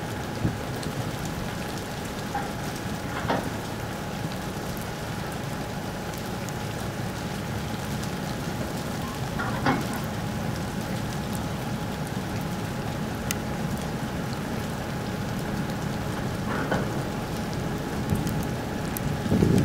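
Steady hiss of rain over the low hum and faint steady whine of a car ferry's machinery as it comes alongside the quay. A few faint knocks about three, ten and seventeen seconds in, and a louder gusty rush starts near the end.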